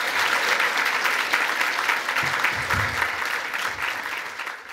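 Audience applauding, a dense sustained clapping that eases off near the end.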